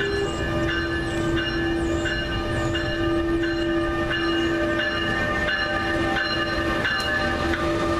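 NJ Transit ALP-46A electric locomotive approaching and running close past, its bell ringing about one and a half times a second over a steady low hum and the rumble of the train.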